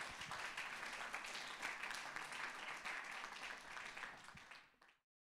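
Audience applauding, a dense patter of many hands clapping, fading out about four and a half seconds in.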